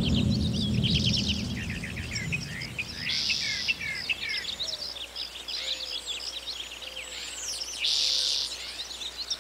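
Many small birds chirping and twittering, with the song's music fading out in the first few seconds. Twice, about three seconds in and near the end, a short buzzy burst stands out, the second one the loudest moment.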